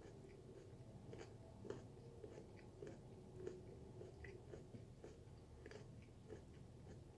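Faint chewing of a mouthful of raw sweet potato: soft, irregular crunchy clicks with the mouth closed.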